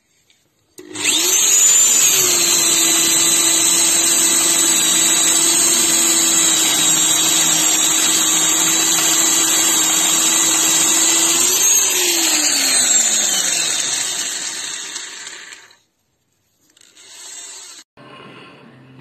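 Electric drill boring into softwood with a large wood-boring bit. The motor starts with a rising whine about a second in and runs at a steady pitch under load; near the end of the cut the pitch jumps briefly, then falls away as the drill winds down, and the noise fades out.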